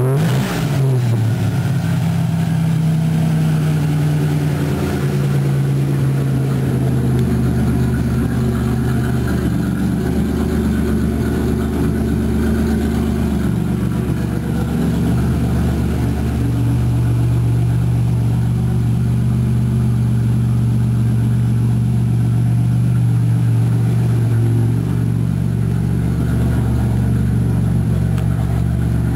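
Turbocharged Buick 3.8-litre V6 (LC2) with a GT67 turbo, revved briefly by hand at the start, then idling steadily with small shifts in engine speed.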